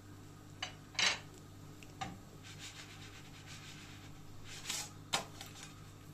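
Nonstick frying pan shaken and slid on a gas stove's metal grate, giving a few short scrapes and knocks, the loudest about a second in, over a low steady hum.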